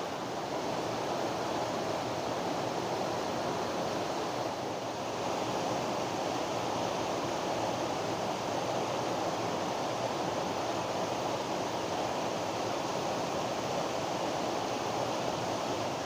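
Waterfall rushing steadily, an even noise of falling water that holds constant throughout.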